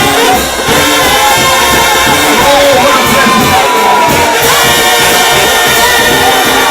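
A trombone shout band plays a loud gospel tune over a steady beat, while the congregation sings and shouts along.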